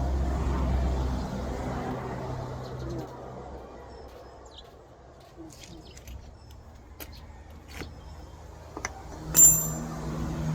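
A vehicle engine rumbling, fading away after about three seconds. Then scattered clicks and knocks, and near the end a sharp metallic strike with a brief ringing note, the loudest moment.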